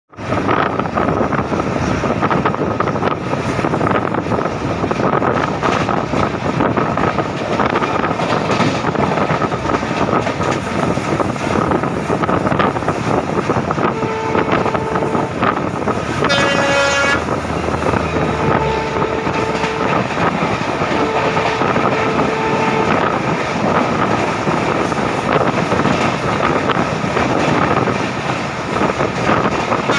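A train passing with a steady, loud rattle of wheels and coaches, while WDP4-class diesel locomotive horns blow. There is a two-note horn blast about halfway through, a brighter single horn blast just after it, then two longer two-note blasts a few seconds later.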